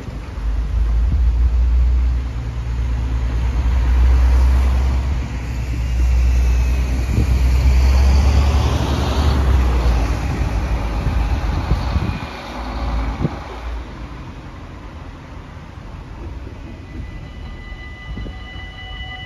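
Road traffic crossing the tracks: a city bus and cars drive past close by, a loud, low engine and tyre rumble for about the first twelve seconds. About two seconds before the end, the level crossing's warning bells start ringing steadily, the signal that a train is approaching.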